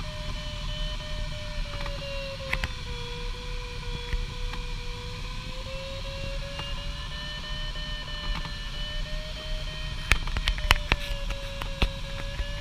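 Steady airflow hiss in a glider cockpit, with the continuous electronic tone of the variometer, its pitch drifting slowly down and back up as the sink rate changes. A few sharp clicks about ten seconds in.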